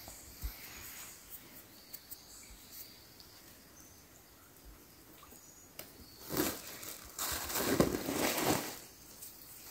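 Hands working a collapsible mesh fish trap: faint small clicks and light rustling over quiet outdoor ambience with a few brief bird chirps, then louder rustling in bursts from about six seconds in as he reaches down for the bait bag.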